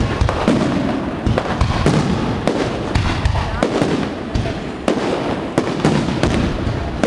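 Aerial fireworks display: a rapid, irregular run of shell bursts, several bangs a second, over continuous crackling.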